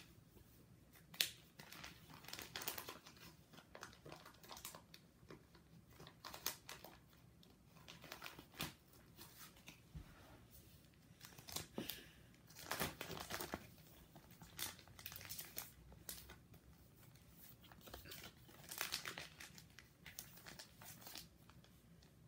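Clear plastic binder sleeve pages crinkling as baseball cards are handled and slid into their pockets, in short scattered bursts with a sharp click about a second in.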